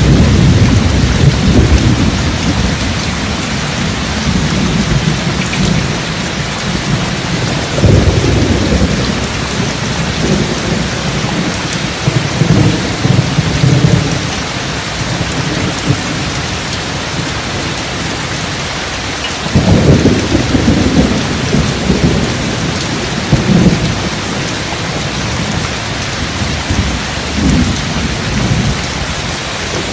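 Steady rain with thunder rumbling again and again, the loudest rumble about two-thirds of the way through.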